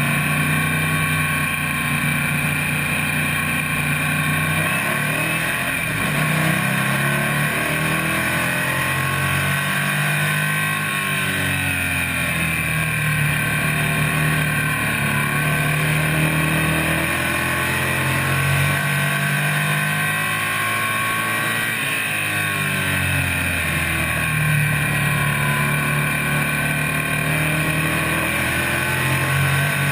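Stock car engine heard from inside the cockpit while racing on an oval: the revs climb and drop over and over, about every five to six seconds, as the car works through the laps.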